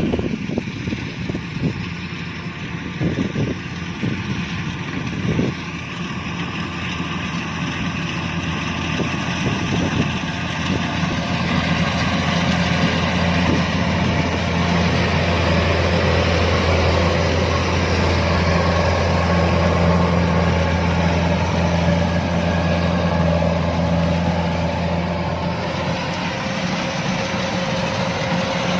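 Kubota DC-105X combine harvester running steadily under load: a diesel engine hum with the noise of its threshing machinery, a few knocks in the first seconds, growing louder about a third of the way in.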